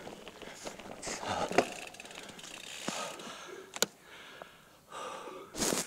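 Bicycle labouring up a steep cobblestone climb in its lowest gear, the rider standing on the pedals: the chain and gears click and rattle, with a few sharp knocks and hard breaths every second or so.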